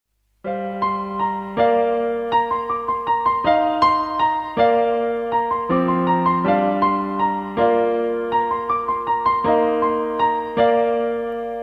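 Instrumental Lao-style music: an electronic keyboard plays a melody over held chords, starting about half a second in.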